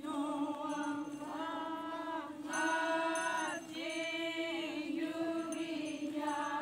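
A women's chorus singing a Naga folk song together, in phrases that rise and fall over a steady held note.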